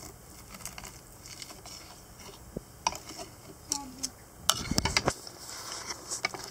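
Knife and fork cutting a cooked sirloin steak on a plate: scattered clicks and scrapes of metal against the plate, with a louder knock and rumble about four and a half seconds in.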